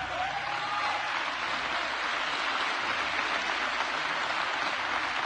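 Church congregation applauding: a steady wash of clapping from a large crowd.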